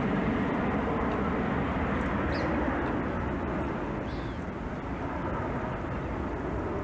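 Steady rumble of a passing aircraft overhead, easing slightly after about three seconds. Two brief high bird chirps come through it, about two and four seconds in.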